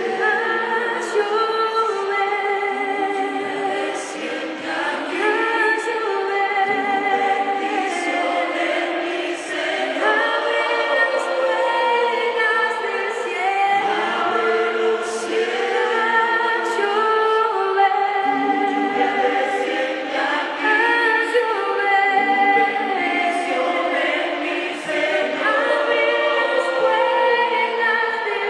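A choir of several voices singing a Spanish-language worship song together, with no break.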